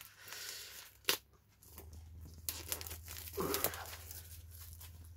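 Vinyl LP sleeves and packaging being handled: soft rustling and crinkling, with one sharp click about a second in and a few lighter clicks later.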